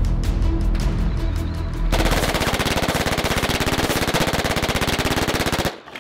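Dramatic music with heavy bass, then about two seconds in a long, very rapid burst of machine-gun fire that cuts off suddenly near the end.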